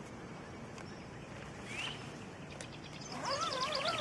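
Birdsong in quiet open-air background: a short rising chirp about two seconds in, then near the end a rapid high trill of chirps together with a lower, wavering call.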